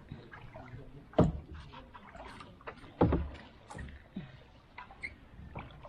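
Kayak paddling: paddle strokes dipping and splashing in the water with small knocks, and two loud thumps about a second and three seconds in.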